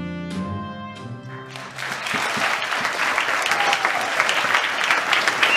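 Live stage music ends on a last struck chord that dies away, and about two seconds in an audience breaks into applause that keeps growing louder.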